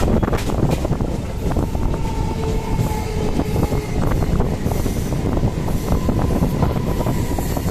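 Kolkata suburban electric local train running on the track: a steady rumble with scattered clicks from the wheels and rails, and a faint thin whine now and then.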